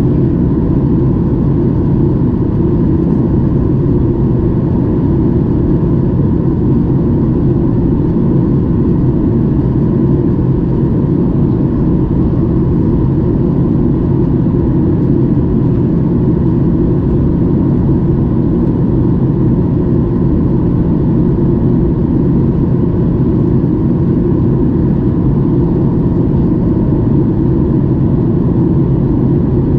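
Steady in-flight cabin noise of a Boeing 737-800 heard from a window seat beside the wing and its CFM56-7B engine: an even, low rumble of engine and rushing air with a few steady hums in it.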